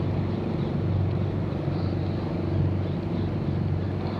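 Steady low engine hum of a motor running at an even speed, with no change in pitch.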